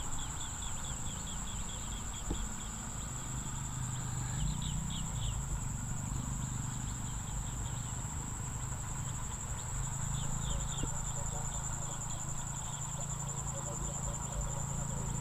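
Insects trilling steadily in a continuous high-pitched drone, with short runs of quicker chirps about four seconds in and again about ten seconds in, over a low hum.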